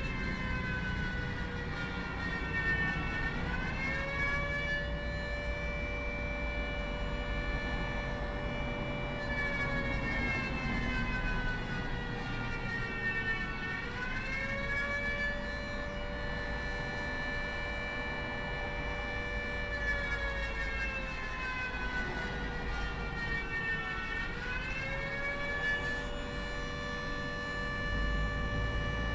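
Flood warning siren sounding in a test: a steady multi-tone wail that sags in pitch and climbs back up about every ten seconds, three times over.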